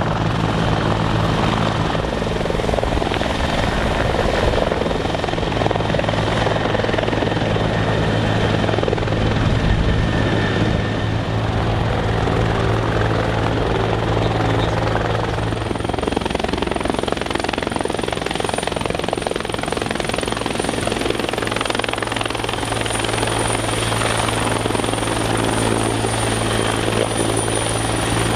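Bell 212 and Bell 412 twin-turbine helicopters running close by, hovering and flying: a steady, loud rotor beat with heavy rotor wash. A thin high turbine whine comes in about halfway through.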